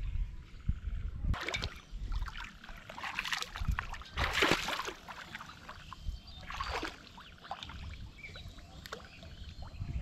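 Shallow pond water splashing in several short bursts, the loudest about four seconds in, stirred by someone standing and moving in shin-deep water while fishing; a low rumble runs underneath.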